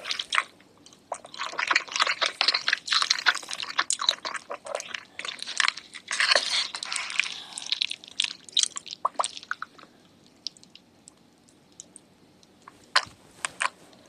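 Close-miked ASMR eating sounds: crunchy chewing and crackly mouth clicks, dense for the first eight seconds or so, then thinning out to a few scattered clicks.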